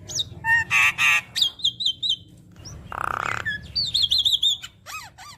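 Javan myna (jalak kebo) singing a varied, chattering song: runs of quick repeated whistled notes, broken by a harsh rasping call about three seconds in.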